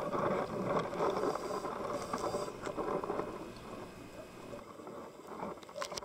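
Underwater ambient noise picked up by a dive camera: a rushing, uneven hiss of water, louder in the first few seconds and thinning out after about four seconds.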